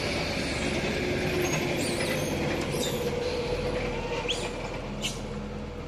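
Loaded lorry driving past, its engine and tyres making a steady hum that eases off near the end. A few short, high squeaks sound over it.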